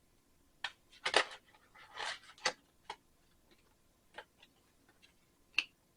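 Tarot or oracle cards being handled on a table: a few irregular clicks and short rustling slides of card stock, with the loudest pair about one and two seconds in.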